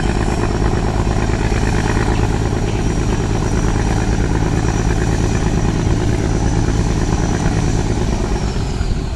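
A speedboat's engines running steadily under power as it churns away from the dock, with a thin high whine over them that begins to fall in pitch near the end.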